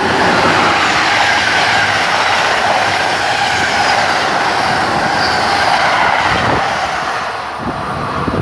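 Passenger train passing at speed: a loud rush of wheels on rail with a faint high squeal running through it, easing off near the end.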